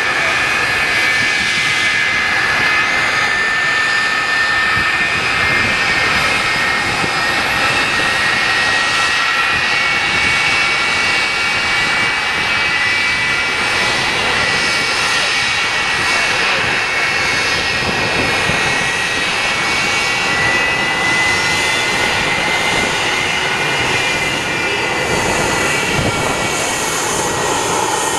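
Idling jet engines of a McDonnell Douglas MD-82, its two rear-mounted Pratt & Whitney JT8D turbofans, as the airliner taxis: a steady high whine over a rushing noise. Near the end the sound grows brighter and hissier as the jet turns away.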